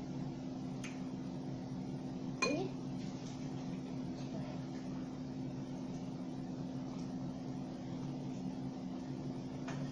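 A steady low hum in the room, with a faint clink about a second in and a sharper one about two and a half seconds in.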